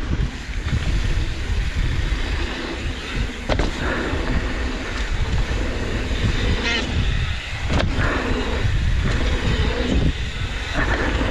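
Wind buffeting an action camera's microphone in a continuous low rumble, with two sharp clicks or knocks and a few brief high squeals mixed in.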